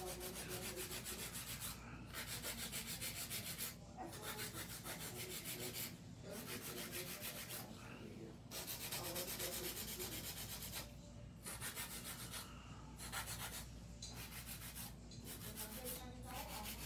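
Hand nail file rasping back and forth across an acrylic nail, shaping it. The filing comes in runs of quick strokes a second or two long, with short pauses between.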